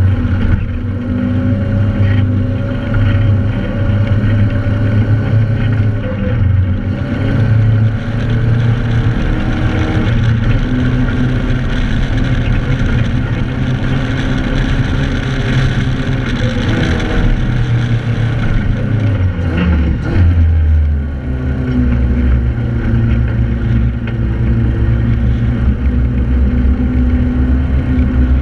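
Joyner 1100 Sandviper sand rail's engine running hard as it drives across sand dunes. The engine note drops and changes briefly about three-quarters of the way through, then carries on.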